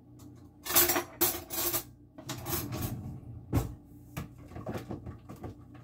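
Kitchenware handling: a glass and juice container being knocked and clinked as fresh green detox juice is served out, with noisy scraping bursts in the first few seconds and a sharp knock about three and a half seconds in, then a few lighter clicks.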